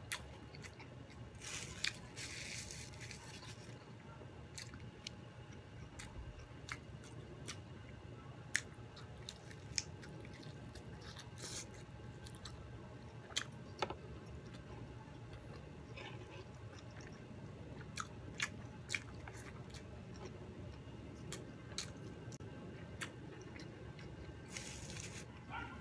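Close-up eating sounds of crispy fried chicken and rice: chewing with wet mouth clicks, and crunchy bites about two seconds in and again near the end.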